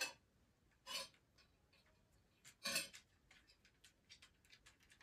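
A metal fork clinking and scraping against a plate as a cat paws at it. There are three separate clinks, the loudest about two and a half seconds in, then a run of light, quick ticks.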